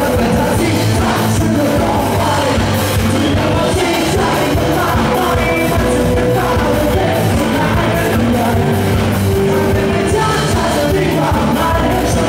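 A live rock band playing: a male singer over electric guitars, bass and a drum kit with steady cymbal hits.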